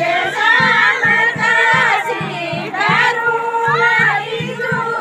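Group of women singing a Kumaoni jhora folk song together, holding long notes, over a steady low beat about four times a second.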